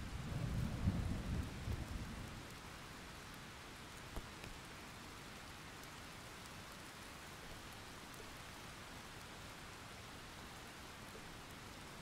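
Thunderstorm: a low rumble of thunder in the first two seconds or so that dies away, leaving steady rain.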